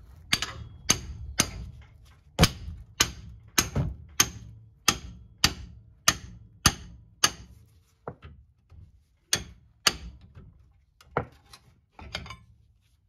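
Hammer striking steel suspension parts, about two sharp metallic blows a second with a short pause partway through: driving out a ball joint that is rusted fast in the steering knuckle.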